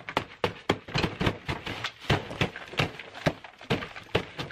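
Rapid, irregular pounding of hands and fists on a table heaped with food, about four hits a second, with food splattering.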